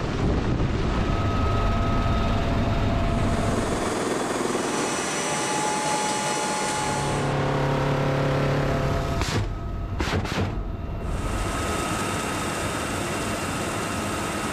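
Military helicopters running, rotor and turbine noise changing with each shot, at times heard from inside the cabin in flight. A short cluster of sharp cracks comes about ten seconds in, and a steady high turbine whine runs near the end.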